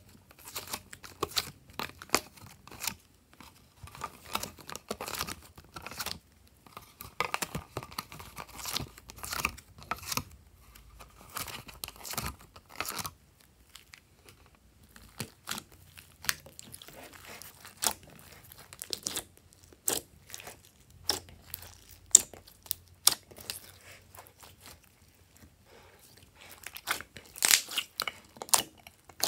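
Clear plastic mould tray crinkling and clicking as soft clay cubes are pushed out of it. Later, glossy slime is squeezed and stretched by hand, with small sticky pops and crackles.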